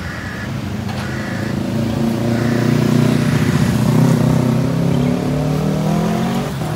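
Street traffic passing close by, with one vehicle's engine accelerating, its pitch rising as it goes and loudest about halfway through.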